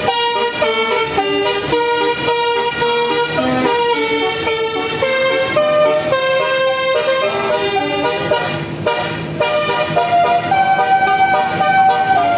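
Indonesian 'telolet' bus horn, a set of multi-tone horns, playing a tune of short stepped notes without a break, rising to a longer, higher note about ten seconds in.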